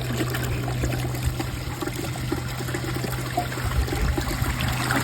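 2005 Crane Plumbing toilet in the middle of a flush: water running and draining through the bowl, with a steady low hum under it.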